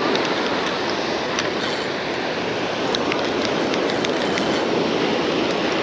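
Steady rushing wash of ocean surf breaking on the beach, with a few faint clicks.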